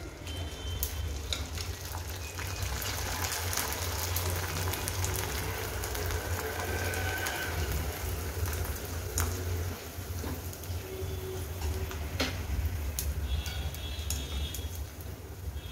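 Kurdai (rice fryums) sizzling in hot oil in an iron kadhai as they puff up: a steady hiss with scattered sharp crackles. Now and then the wire skimmer stirring them clicks against the pan.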